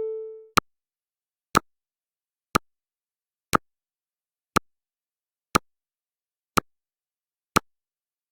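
Countdown timer's tick sound effect: one short, sharp tick every second, eight in all. In the first half second, the ringing tail of an electronic chime tone fades out.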